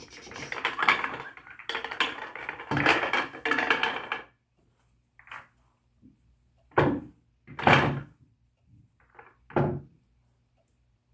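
Pool balls clattering and rolling together for about four seconds, then a few separate hard knocks of balls and cue, the loudest two close together just past the middle.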